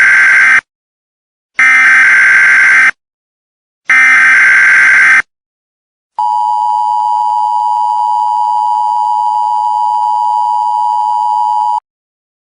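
Emergency Alert System tones: three bursts of the SAME digital header, a warbling data screech about a second long each and about a second apart, then the two-tone 853/960 Hz attention signal held steady for about five and a half seconds before it cuts off.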